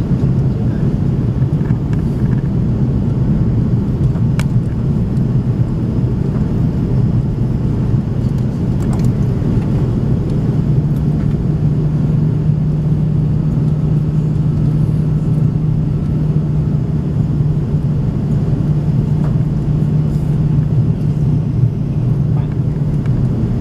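Steady cabin noise inside an Airbus A330 on approach: engine drone and airflow rumble from over the wing. The low engine hum steps slightly higher in pitch about ten seconds in.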